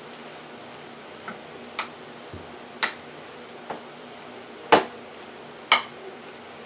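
Rotini pasta being mixed with shredded cheese by hand in a ceramic bowl: about six sharp clinks and knocks against the bowl, the two loudest in the second half.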